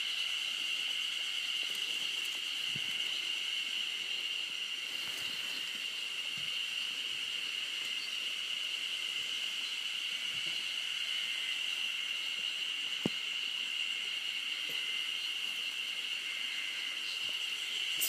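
A steady, high-pitched drone of insects, with a few faint knocks along the way.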